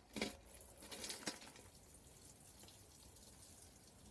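Quiet background hiss, with a few faint knocks and clicks in the first second and a half.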